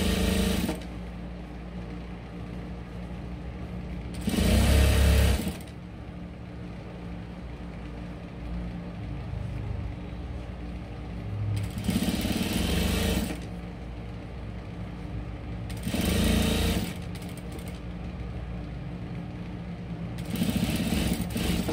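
Industrial lockstitch sewing machine stitching in five short runs of about a second each, its motor humming steadily between runs, as binding is sewn around a neckline.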